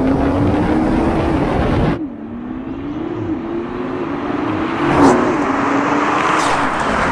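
Toyota Supra and Nissan GT-R sports cars accelerating hard side by side in a drag race, the engine note climbing and dropping back at each upshift. The sound drops abruptly about two seconds in, and near five seconds there is a brief loud rush as the cars pass close.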